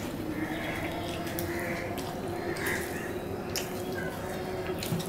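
Eating sounds: wet chewing and mouth smacks, with fingers mixing rice and curry on steel plates, and a few sharp clicks among them. A faint steady hum runs underneath.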